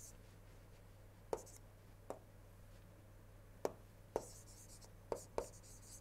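Pen stylus writing on a tablet screen: about six sharp taps of the tip, with brief scratchy strokes in the second half, over a faint steady low hum.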